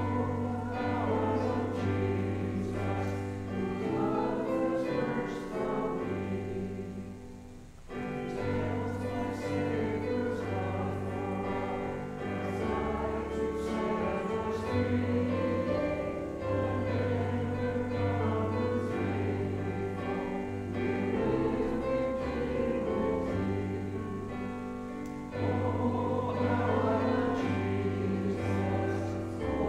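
Congregation singing a hymn together, accompanied by a Kawai digital piano holding low bass notes under the voices. There is a brief break between phrases about eight seconds in.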